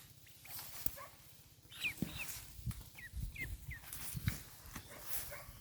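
A series of short, high animal calls, each a quick bending cry, about seven of them clustered through the middle, over low thuds.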